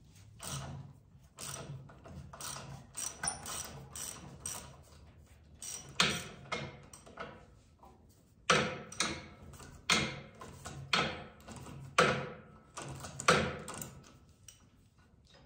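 Socket ratchet wrench clicking in repeated strokes as a threaded bolt is backed out of the tractor's front frame. The strokes are faint at first, then louder and about one a second in the second half.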